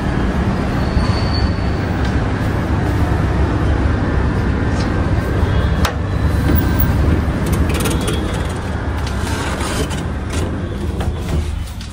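Steady low urban rumble of street traffic and air-conditioner outdoor units, with a sharp click about six seconds in as a sliding balcony door is opened. The rumble drops off just before the end.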